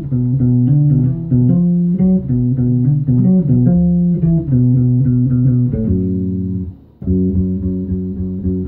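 Violin-shaped electric bass guitar played as a melodic line of plucked notes. About six seconds in a note is held, then the playing stops briefly and picks up again.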